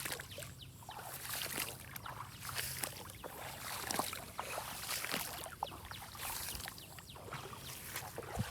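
Water splashing and sloshing in many small, irregular splashes.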